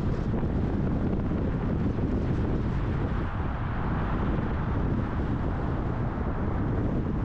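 Steady road and wind noise from a car cruising at highway speed: a low, even rumble with wind buffeting the microphone.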